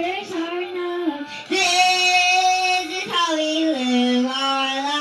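A child singing a song, holding long notes: a long one in the middle and a lower one near the end.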